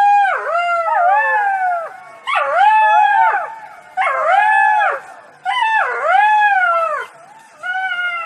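A fox calling: a string of about five high, whining howl-like calls, each about a second long, that rise and fall in pitch, with short pauses between.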